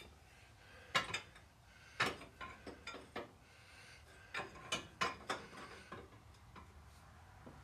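A steel wrench clicking and clinking on the base nuts of a Caterpillar 60's water manifold as they are snugged down: about a dozen short, sharp metal clicks in irregular clusters.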